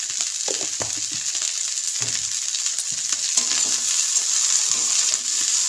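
Shredded vegetables sizzling steadily in hot oil in a stainless steel wok, with a few scrapes of a steel spatula as they are stirred.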